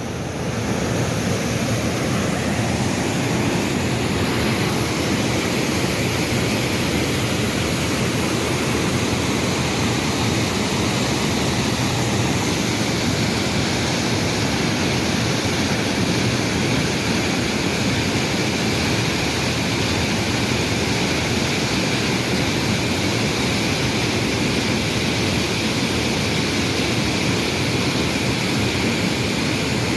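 A waterfall's steady rush of falling water, even and unbroken.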